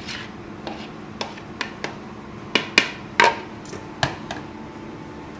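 A plastic bowl and spoon knocking and tapping against the rim of a stainless steel mixing bowl as a crumbly mixture is knocked out of it. About a dozen sharp, irregular knocks, the loudest bunched a little past halfway.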